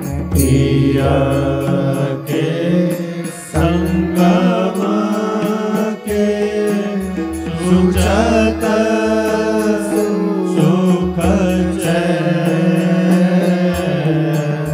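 Devotional chant-style singing over a steady, sustained drone, with a melody that bends up and down.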